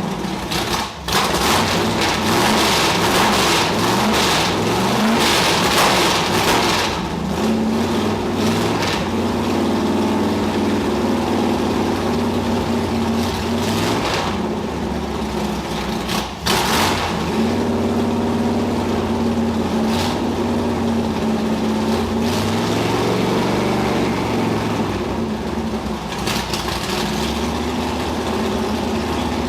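Chevrolet 454 big-block V8 with sidepipes running loud, its engine speed rising and falling repeatedly, with two brief dips about a second in and about halfway. The engine is cold and has no choke, so it needs throttle pumping to keep running.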